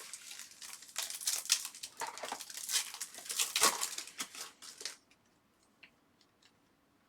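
Trading-card pack wrapper crinkling and tearing open, a dense crackle of many sharp strokes for about five seconds, followed by a few faint clicks of cards being handled.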